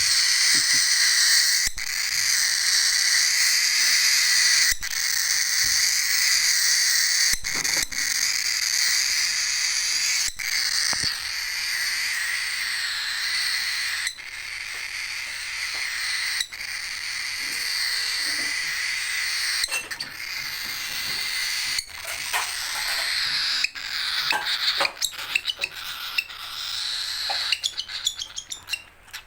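Baby cockatiel's hungry begging calls: a loud, raspy, high-pitched call held for a couple of seconds at a time with short breaks between, turning into quicker, choppier calls near the end.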